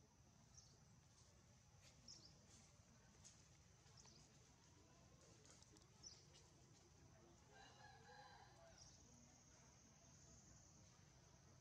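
Near silence: faint outdoor ambience with a steady high whine and a few short high chirps. About eight seconds in there is one longer, faint call from further away.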